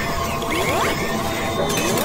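Logo-intro sound design: mechanical whirs that rise in pitch, repeating about once a second over music.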